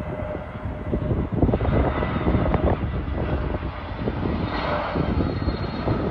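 Turbofan engines of an SAS Airbus A320neo on final approach: a steady jet rumble with a faint high whine, growing a little stronger near the end, over gusts of wind on the microphone.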